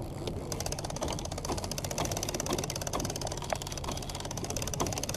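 Fishing reel clicking in a fast, even run as a hooked salmon is played on a trolling rod.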